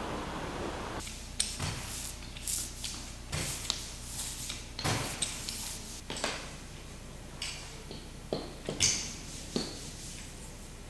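After about a second of steady background noise, cut woodblock pieces are handled and set down on a wooden board, giving irregular light taps, clicks and scrapes.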